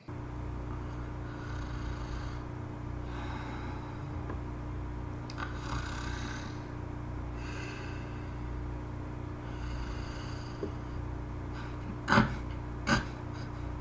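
Cartoon snoring sound effect: slow, regular snores about every two seconds over a steady low hum. Near the end come two short, sharp, louder sounds a little under a second apart.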